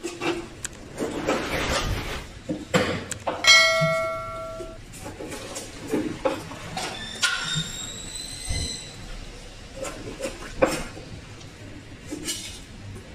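Knife cutting and scraping through a large fish on a cutting board while it is gutted: scattered knocks and rasps, with a short metallic ring about three and a half seconds in.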